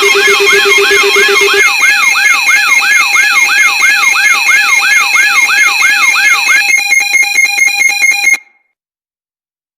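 Layered electronic alarm tones from a mock emergency alert: a siren-like sweeping tone repeating about three times a second over steady high beeping tones. About seven seconds in it changes to a fast stuttering pulse, and everything cuts off abruptly about a second and a half later.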